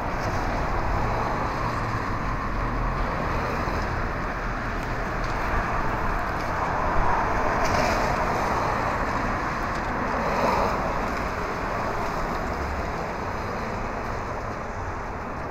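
Steady hiss of rain and tyres on wet pavement, heard from inside a car, swelling twice as cars pass close by.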